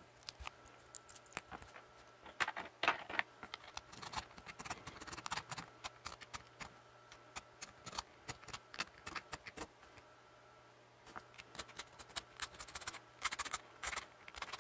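Faint, irregular small clicks and scratches of hands handling and rubbing a 3D-printed plastic pump-drill spiral shaft, with a short lull about two-thirds of the way through.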